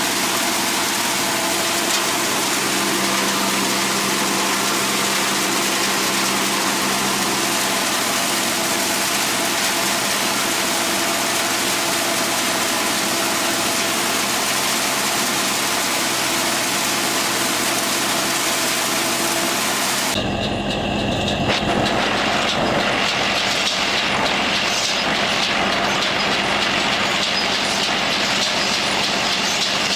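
Tractor-driven bean harvesting machine running steadily. About two-thirds of the way through, the sound changes suddenly to a rougher, rattling clatter.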